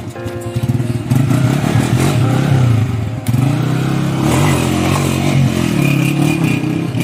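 Honda CG125 motorcycle's single-cylinder four-stroke engine, freshly tuned, running and revving up and down as the bike pulls away.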